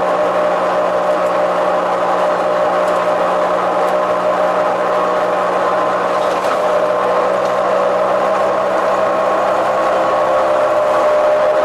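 ZF 5HP602C automatic gearbox of a Neoplan double-decker bus whining steadily under way, over the running of its MAN D2866 diesel engine.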